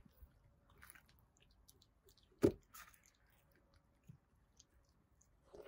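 Faint scattered clicks, with one sharp knock about two and a half seconds in.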